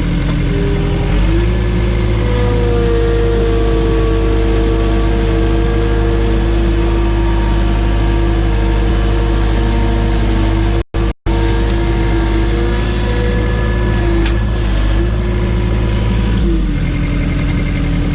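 Case/Davis D100 backhoe engine running under work: it speeds up about a second in, with a steady whine over it while the machine works, and drops back toward idle near the end. The sound cuts out twice, very briefly, about eleven seconds in, from corruption in the recording.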